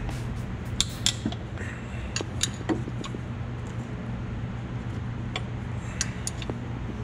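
Hand wrench working a bracket bolt on an engine: a handful of sharp, irregular metal clicks and clinks as the wrench is fitted and turned, over a steady low hum.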